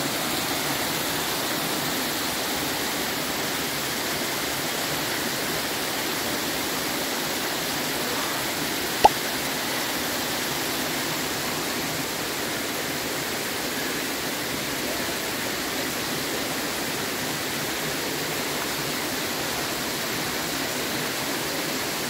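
Steady rush of Erawan Waterfall's cascades pouring over limestone tiers, with one short sharp click about nine seconds in.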